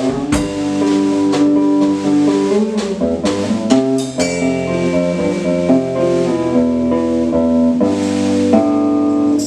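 Live indie folk-rock music with no vocals: guitar chords ringing over a drum kit. The drum hits come thick in the first few seconds, then thin out while the chords sustain.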